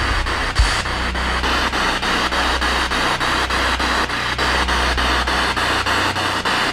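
Spirit box (a radio scanner sweeping rapidly through radio frequencies) giving out loud static hiss, chopped evenly and rapidly as it steps from station to station. A short low thump sounds about half a second in.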